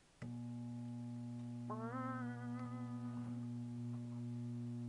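High-voltage arc from a microwave oven transformer switched on about a quarter second in, buzzing steadily at mains-hum pitch as it burns into a model Eiffel tower.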